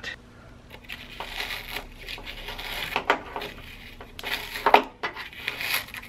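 Foam insulation scraped and crumbled out of a water heater's jacket with a metal tool: an irregular crunching scrape with a few sharper scrapes and knocks, the loudest a little before the end.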